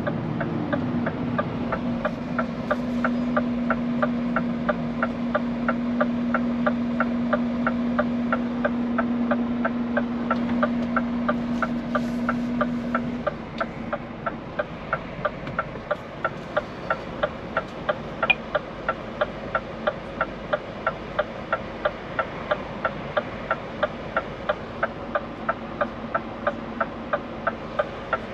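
Turn-signal indicator ticking steadily in a Scania P410 truck cab, roughly two ticks a second, over the low hum of the running truck. A steady drone under it stops about halfway through and the cab gets a little quieter.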